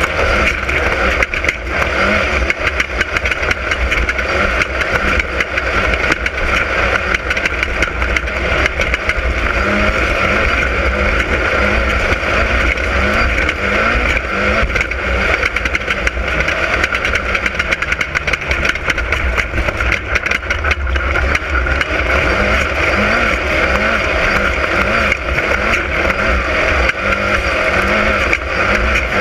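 Class 10 off-road race car's engine running hard at race speed, its pitch rising and falling over and over, over a loud steady rumble.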